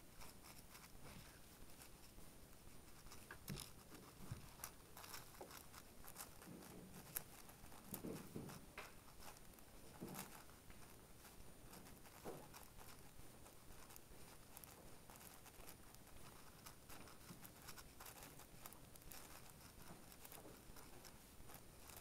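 Faint, scattered clicking and rustling of a Hays7 7x7 speedcube being handled and turned.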